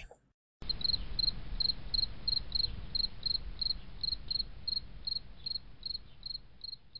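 Insect chirping: short high chirps repeating evenly about three times a second over a faint low hiss, starting about half a second in.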